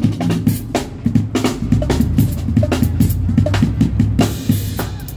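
Small live band playing: a drum kit keeps a busy beat of kick drum, snare and cymbals over steady low bass notes, with electric guitar.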